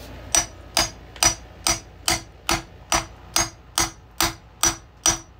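Hammer striking a steel socket held on a dirt bike wheel bearing, about a dozen even blows a little over two a second, each with a short metallic ring, driving the bearing into the wheel hub.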